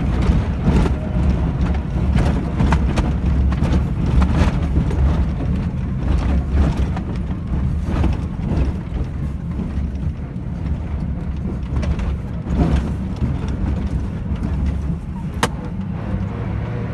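Car driving over a rough road: a steady low rumble of tyres and engine, with repeated irregular thumps and rattles as the wheels hit bumps, and a sharp click about fifteen seconds in.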